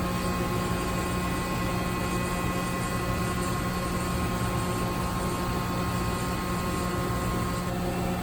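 Steady hum of running industrial machinery: a strong low drone with several thin steady whines above it. Near the end one whine drops out and a slightly lower one comes in.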